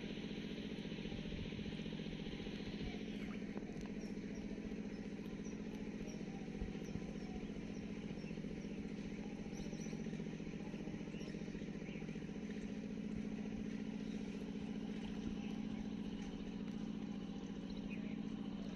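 An engine running steadily at a constant speed, a low, even hum that does not change.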